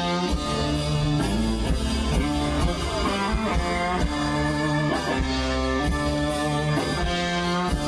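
Live rock band playing an instrumental with electric guitar, bass and drum kit at a steady, loud level.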